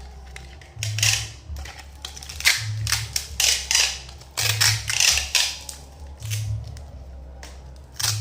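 Rustling and crinkling of packaging being handled, in irregular bursts of noise, over a low beat that repeats about every two seconds. No telolet horn is sounding.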